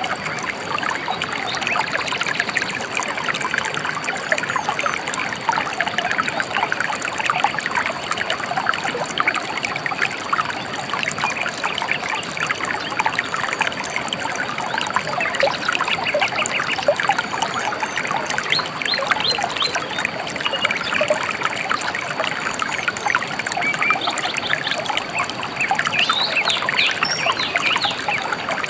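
Small river or stream flowing, with a steady trickling and babbling of water.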